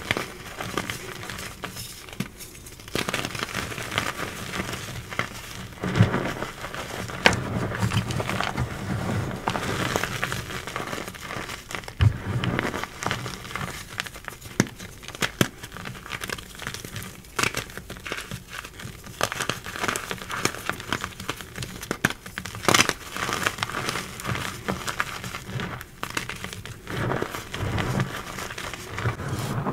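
Hands crushing and crumbling re-formed gym chalk blocks into chunks and powder. The crunching is crunchy and gritty, with many small sharp cracks throughout.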